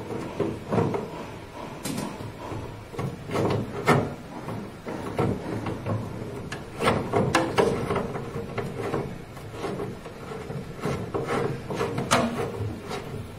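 Braided stainless steel flexible shower hoses being handled while a hose nut is threaded by hand onto a metal pipe fitting: irregular clicks, knocks and the rubbing of the braided hose.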